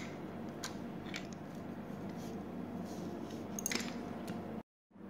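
Hands handling a BOSS PH-3 guitar pedal during disassembly: faint clicks and scrapes of the metal enclosure and circuit board being moved, with a louder scrape about three and a half seconds in. The sound drops out briefly near the end.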